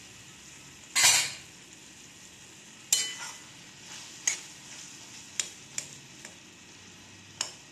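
Spatula stirring soft, simmering tomato chunks in an aluminium kadai, with sharp clicks and scrapes of the spatula against the pan over a faint steady sizzle. A louder clatter comes about a second in.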